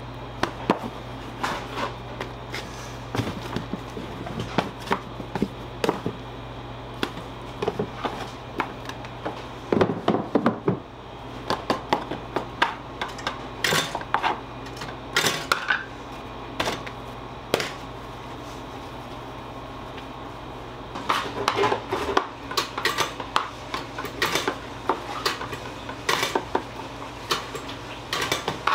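Irregular clatter and clinks of metal baking pans, trays and utensils being handled and set down, over a steady low machine hum.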